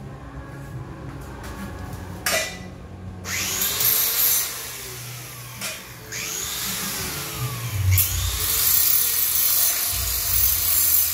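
A power tool working on the steel frame of a tool cabinet, running in two long stretches of loud, hissing grinding noise, after a single knock a little over two seconds in.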